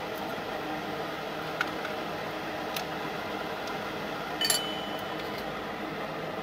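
Steady background hiss of a workshop, with a few light clicks and one sharp metallic clink with a short ring about four and a half seconds in.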